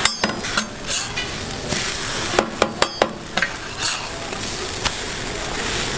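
Egg-and-cheese pancake sizzling steadily on a hot flat steel griddle, with a quick run of about four sharp metal clicks from a spatula on the griddle around the middle.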